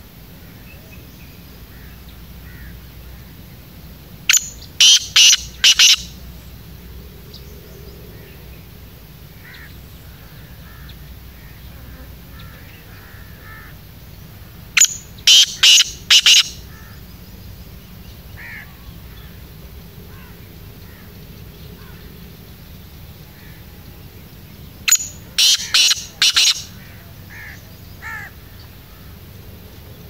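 Black francolin (kala teetar) calling three times, about ten seconds apart. Each call is a loud, harsh phrase of four or five quick notes lasting about a second and a half.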